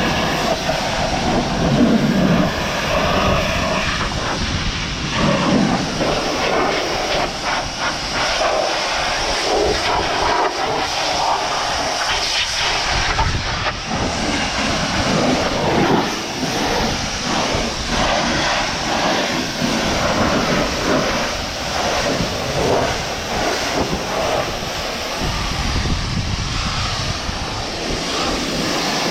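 Pressure washer running and spraying water onto a car, a steady hissing rush with a motor hum underneath that shifts slightly as the spray moves.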